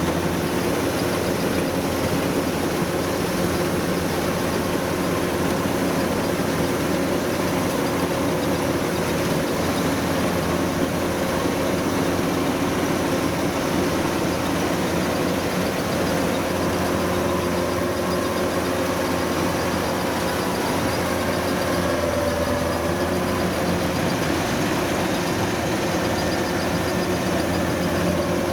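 Kubota rice combine harvester's diesel engine running steadily at a constant speed.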